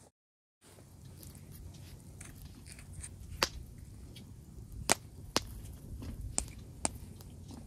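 Scattered sharp clicks or knocks, about five in all, irregularly spaced over a low steady rumble, after a moment of dead silence at the start.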